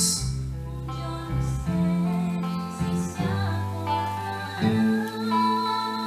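Music: a slow instrumental passage of held chords changing every second or so, between sung lines of a Spanish-language version of a musical-theatre song.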